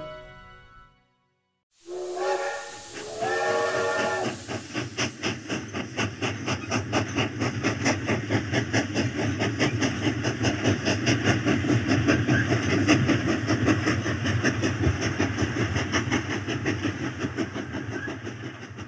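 Steam locomotive whistle giving two short blasts, then the locomotive chuffing steadily with a constant hiss of steam, fading out near the end.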